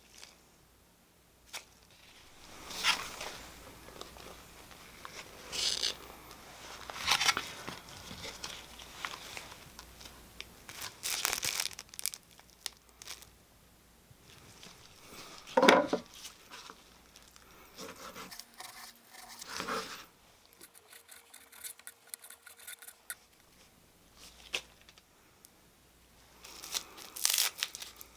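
Gloved hands preparing food make separate bursts of crinkling and tearing, with one louder short knock a little past halfway. Near the end comes the tearing of a sheet of nori by hand.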